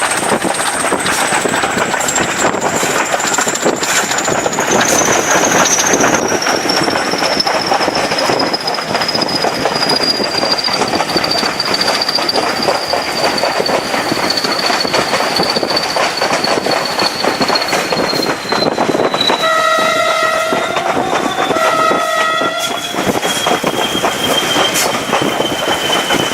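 Class 20 diesel locomotive's English Electric engine working hard, with a high turbocharger whistle that slowly falls in pitch. About twenty seconds in, its two-tone horn sounds twice in quick succession.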